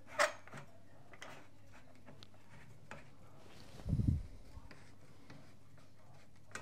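Telescopic support prop being extended and adjusted against the door frame: a sharp click just after the start, a few faint clicks, and a low thump about four seconds in.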